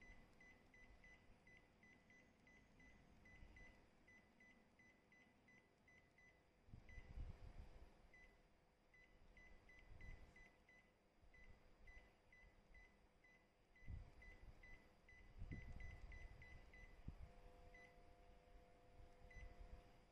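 Epson EcoTank printer's touchscreen control panel giving short, high key beeps, about four a second in runs with pauses, as a menu list is scrolled. A few faint low bumps from handling come in between.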